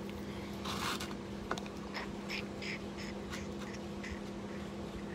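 Eating sounds: a run of short, crackly chews about three a second, and a plastic spoon scraping and tapping in a plastic bowl, over a steady low hum.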